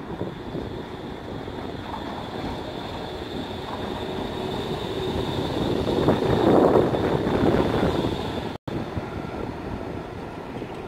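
Electric tram running past on street track. Its rumble builds to a peak about six to seven seconds in as it passes close, then eases off, with a steady high whine throughout. The sound cuts out for an instant near the end.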